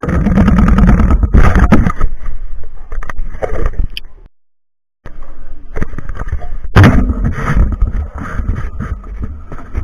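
Loud rumbling and scraping handling noise on a small camera's microphone as the camera is moved about, with a few knocks. There is a brief break of total silence about halfway through.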